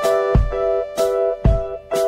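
Background music: held chords with three sharp drum hits.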